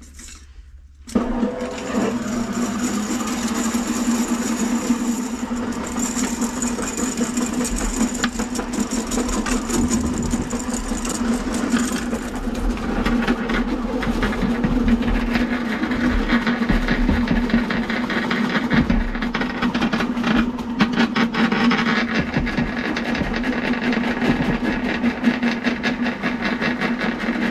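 Electric drain-cleaning machine starting up about a second in and running steadily, a constant hum with irregular clicking as its spinning snake cable is fed into a clogged sewer line to clear it.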